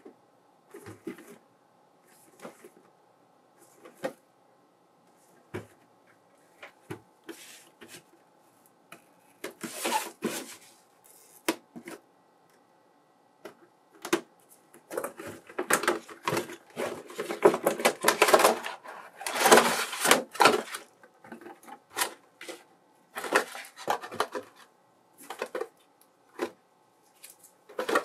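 Clear plastic blister packaging of a boxed figure being handled and opened with a box cutter. Scattered taps and clicks give way around the middle to a long stretch of crinkling, crackling plastic, then more taps and clicks.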